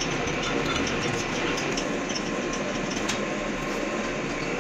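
A big lathe running slowly, spinning a heavy crusher-shaft coupling in its chuck: a steady mechanical rumble and hum with a few faint ticks. The coupling is being turned so its runout can be checked with a dial indicator before cutting.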